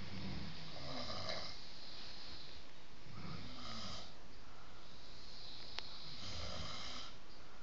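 Snoring: three low snores, about three seconds apart.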